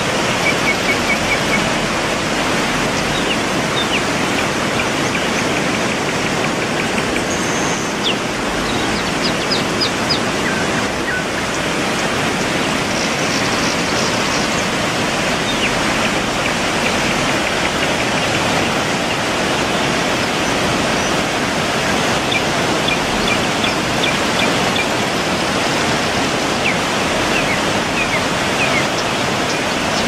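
Waterfall rushing: a loud, steady roar of falling water, with a few faint high chirps now and then.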